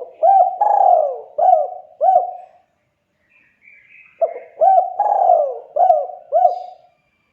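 Spotted dove (tekukur) calling: two phrases of several short rising-and-falling coos, the second starting about four seconds in. A faint higher chirp comes between them.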